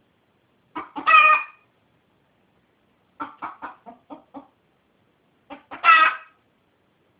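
Domestic rooster calling: a short drawn-out call, then a run of about six quick clucks, then another drawn-out call.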